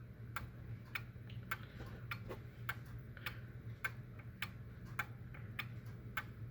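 Escapement of an unmarked circa-1900 Japanese regulator wall clock ticking steadily, a little under two ticks a second, over a low steady hum.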